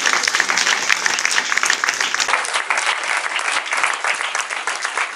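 Audience applauding: many people clapping at once, a loud, dense patter of claps.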